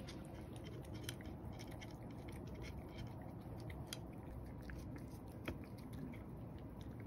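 Cat eating dry kibble: faint, irregular crunches and clicks of chewing, over a steady low room hum.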